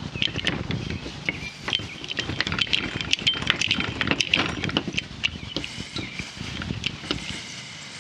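Hand-pumped hydraulic cable-lug crimper being worked on 2 AWG battery cable: a dense, irregular run of sharp metallic clicks and taps as the handle is pumped and the dies close on the lug.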